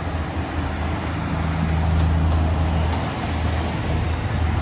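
Two-car diesel railcar train (Kiha 37 and Kiha 38) passing close by, its diesel engines droning steadily, getting louder over the first couple of seconds.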